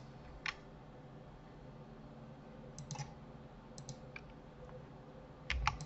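A few scattered, soft clicks from a computer mouse and keyboard during 3D editing, with a slightly louder cluster of clicks near the end, over a faint steady hum.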